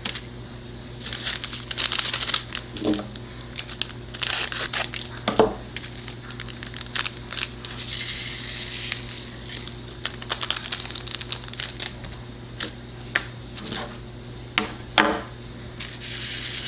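Small plastic bag of resin diamond-painting drills crinkling as it is handled and opened, and the tiny drills poured out into a plastic drill tray, with scattered clicks and short spells of fine hiss.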